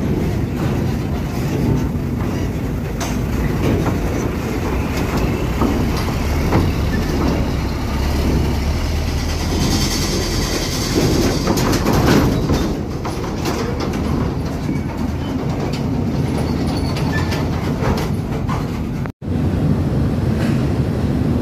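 Heavy truck rolling slowly, a steady low rumble with irregular clanking and rattling throughout; the sound cuts out for an instant near the end.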